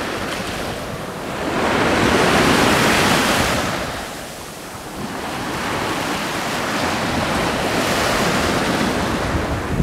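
Small sea waves washing up and breaking on a sandy beach, a rushing wash that swells after a second or so, ebbs briefly around four seconds in, then builds again.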